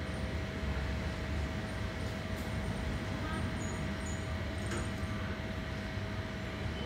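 Steady low rumble of background noise with a faint constant hum running under it, and a few faint high ticks.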